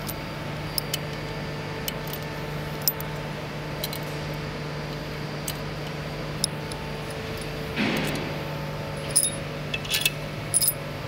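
Small metal parts clinking in the hand and against an aluminium engine block, with a few sparse clicks and a quick cluster of clinks near the end. A steady low hum runs underneath, and there is a brief rushing noise about eight seconds in.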